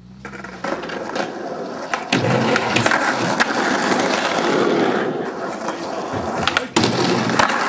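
Skateboard wheels rolling over rough, cracked asphalt, a steady gritty rumble, with a few sharp clacks of boards hitting the ground, the loudest about two seconds in and near the end.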